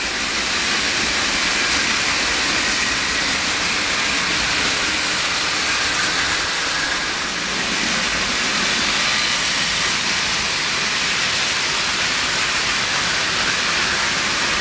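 Märklin HO model trains running on the layout's track: a steady, even rushing noise of motors and wheels on rail.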